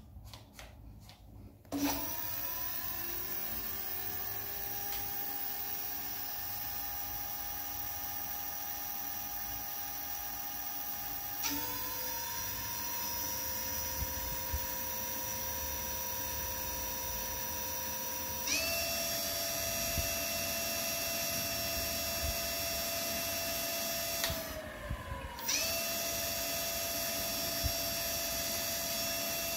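Xtrack GT electric scooter's rear hub motor whining as the wheel spins under throttle, starting about two seconds in. The whine steps up in pitch twice, drops briefly near the end as the throttle eases, then climbs back: a test run of the repaired throttle.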